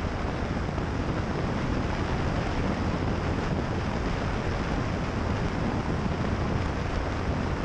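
Steady rush of wind over an outside-mounted camera's microphone, with the drone of a single-engine light aircraft's piston engine and propeller in flight.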